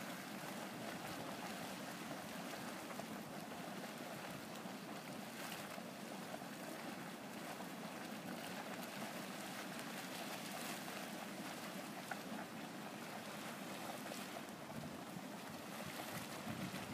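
Steady rushing hiss of volcanic steam vents (fumaroles) venting over a steaming hot-spring pool.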